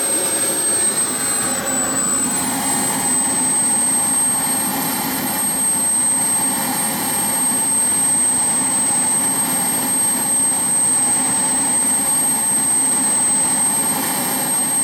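JetCat P-60 model jet turbine running steadily on the ground: a continuous rush of exhaust with a steady high-pitched whine above it.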